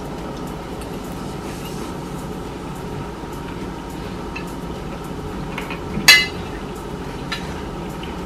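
A fork clinks sharply once on a plate about six seconds in, with a few fainter taps around it, over a steady background hum.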